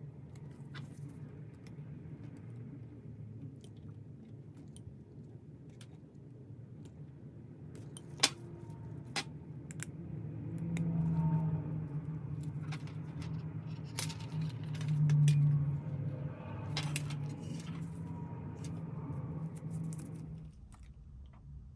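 Scattered sharp clicks and small rattles of tools and small parts being handled during an iPod Classic teardown, busiest in the middle. They sit over a steady low hum that cuts off about a second before the end.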